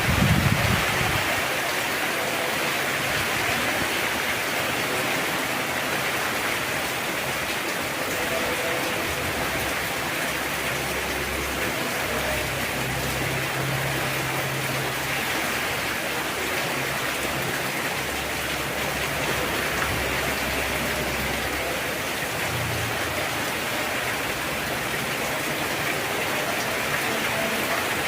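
Heavy rain falling steadily, an even hiss of downpour on surfaces, with a brief low rumble in the first second.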